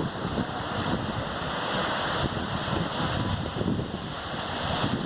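Ocean surf washing steadily on a sandy beach, with wind buffeting the microphone in uneven low gusts.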